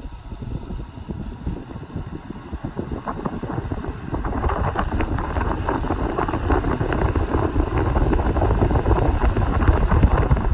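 Vintage Eskimo box fan, model 2124, running on low speed, its airflow rumbling against the microphone as a steady noise that grows louder about four seconds in.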